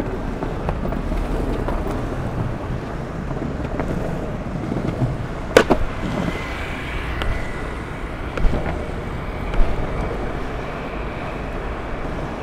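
Longboard wheels rolling over paving slabs and tarmac, a steady rumble with wind on the microphone. A sharp clack about five and a half seconds in and two smaller knocks later, as the board rides over joints and edges in the surface.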